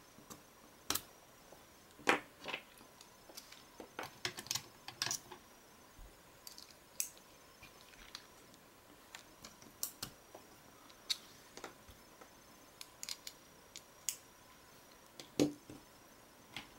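Irregular light clicks and taps of a plastic prying tool and a small screwdriver working on a smartphone's exposed circuit board as flex-cable connectors are unclipped. The loudest clicks come about two seconds in and near the end.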